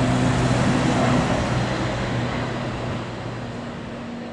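ATR twin-turboprop airliner climbing out after takeoff: a steady low propeller drone over a broad rushing engine noise, fading away from about a second and a half in as the aircraft climbs off.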